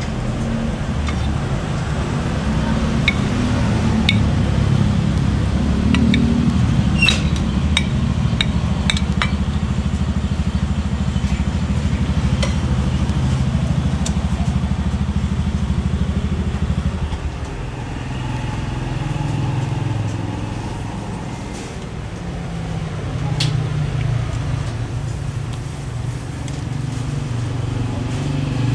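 Steady low rumble of motor traffic that eases a little after about 17 seconds, with a steel ladle clinking against a stainless stockpot of simmering beef broth now and then.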